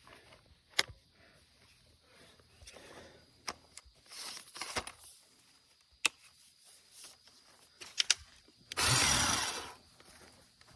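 Scattered clicks, knocks and rustling from handling a cordless pole saw's bar and chain as they are tightened, then a loud rushing burst lasting about a second near the end.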